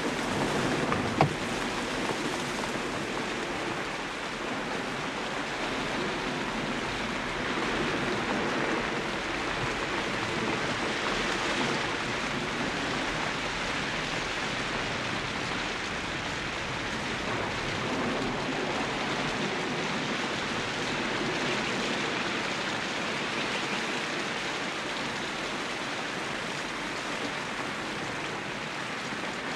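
Rain pouring steadily on a car, with one sharp knock about a second in.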